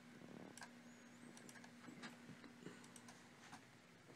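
Faint, scattered clicking of a computer keyboard and mouse over a steady electrical hum.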